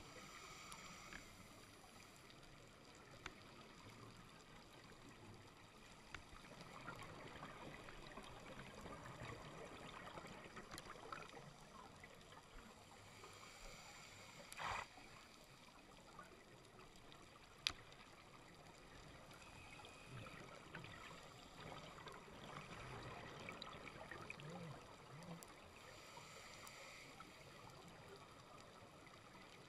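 Faint underwater reef ambience: a low steady hiss scattered with small sharp clicks, with a brief louder rush about fifteen seconds in and a single sharp click a few seconds after it.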